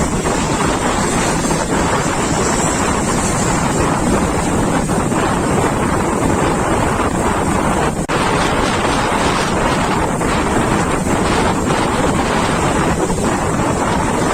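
Strong wind buffeting the microphone over the steady noise of heavy surf, with a brief break about eight seconds in.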